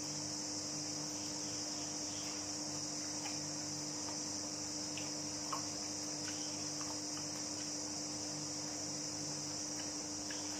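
Crickets chirring steadily in a high, even drone, over a steady low hum, with a few faint clicks.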